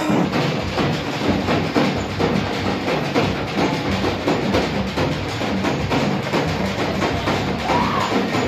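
Music led by fast, steady drumming and percussion.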